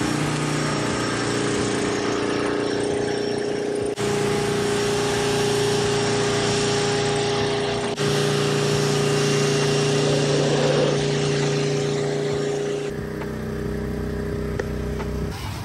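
Pressure washer running steadily, its motor and pump humming under the hiss of the water spray as it hits the car's body. About 13 s in it gives way to a quieter steady background.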